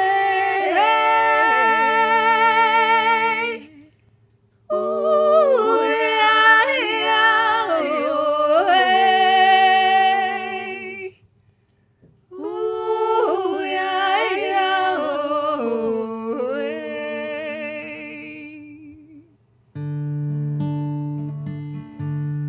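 Song intro: a wordless sung vocal, hummed or vocalised, in three long phrases with vibrato and short pauses between them. An acoustic guitar comes in near the end.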